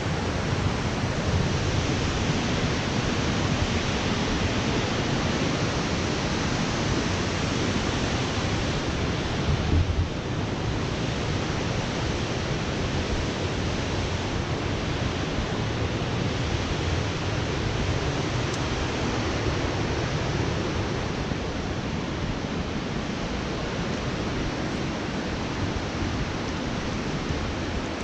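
Steady rushing of a mountain river and waterfall, an even wash of water noise without a break.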